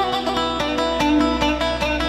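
Instrumental Turkish folk music: an electric bağlama (saz) picked in quick strokes, with a wooden flute playing held melody notes alongside.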